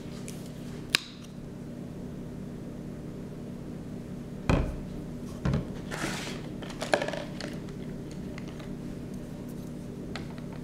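Painting brush working on paper: a short brushing swish about six seconds in, among a sharp click near the start and a few knocks and taps, over a steady low hum.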